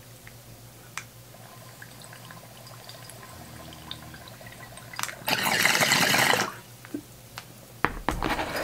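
Water gurgling: faint bubbling, then a loud burst of gurgling lasting about a second, about five seconds in, over a steady low hum.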